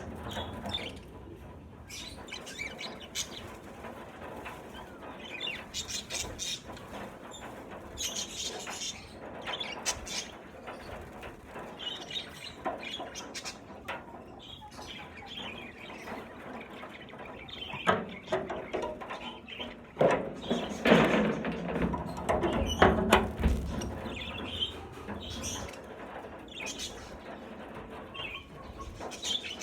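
A flock of budgerigars chirping and chattering continuously. There are bursts of wing flapping, the loudest flurry coming about two-thirds of the way through.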